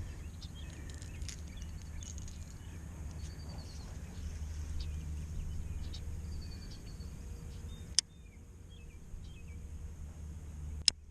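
Outdoor pond-side ambience: small birds chirping now and then over a low steady rumble. Two sharp clicks come near the end, about three seconds apart.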